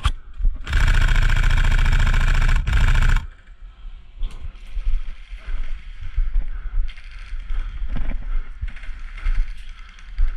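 Electric airsoft gun firing a long full-auto burst of about two and a half seconds, with a brief break just before it stops, followed by scattered knocks and clicks.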